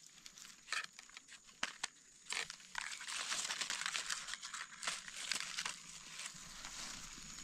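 Dry leaf litter crackling and rustling as gloved hands and a knife dig through it. A few separate crackles come first, then a denser run of crackling starts about two seconds in.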